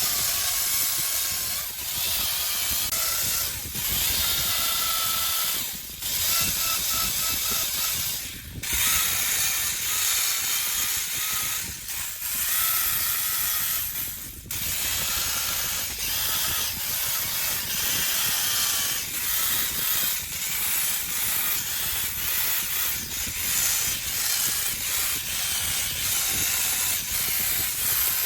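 Chainsaw running and cutting into wood, with short drops in level every few seconds as the saw lets off and bites again.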